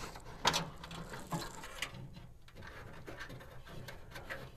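Loose wiring being pushed and pulled through a hole under a car's metal dashboard: faint rustling and scraping of the wires against the dash, with a few light knocks, the clearest about half a second in.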